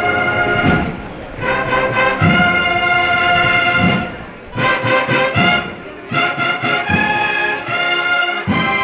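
Brass band with drums playing a processional march: loud held brass chords with drum beats underneath, the phrases breaking off briefly about four and six seconds in.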